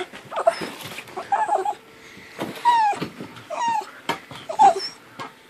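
Small dog whining in about five short cries, each falling in pitch, with rustling of bedding as it moves about.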